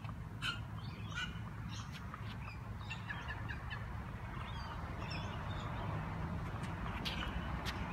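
Tennis ball tapping on the edge of a racquet frame, a series of short, sharp clicks at uneven intervals. Birds call in the background over a steady low outdoor rumble.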